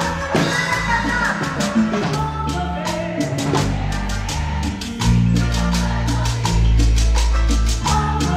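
A live Latin dance band playing, with drum kit and percussion keeping a steady beat under bass and accordion.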